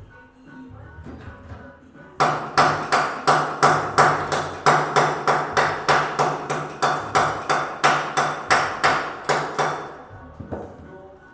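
Hammer blows in a steady rapid run, about three to four strikes a second, starting about two seconds in and stopping near the end, each strike sharp with a ringing tone beneath.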